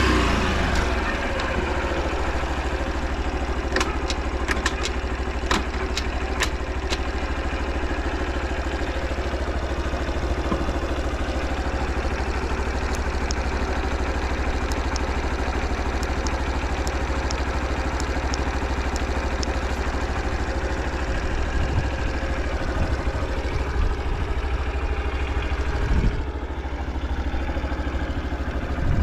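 Honda Super Cub 50 Pro's small single-cylinder four-stroke engine idling steadily, the revs settling back to idle in the first second. It runs evenly with no abnormal noise, with a few light clicks a few seconds in.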